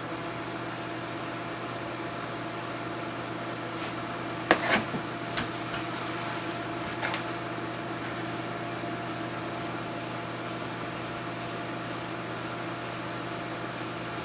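Microwave oven running with a steady hum. A few sharp clicks come about four and a half to seven seconds in.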